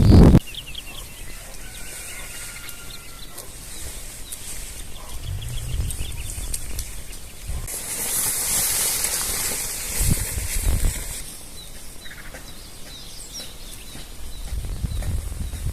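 Rural outdoor ambience with small birds chirping and whistling now and then. A broad rushing noise swells for about three seconds midway, with a few low thuds.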